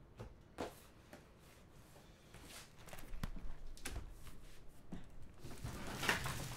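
Cardboard box of trading cards being picked up and handled: scattered light knocks and scrapes starting about three seconds in, loudest just before the end.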